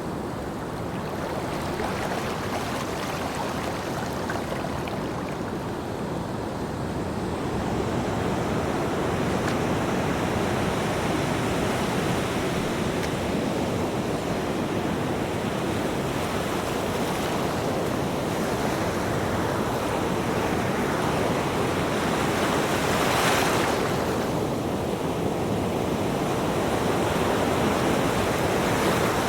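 Ocean surf: waves breaking and washing in a steady rush of water, with one louder wave breaking about three-quarters of the way through.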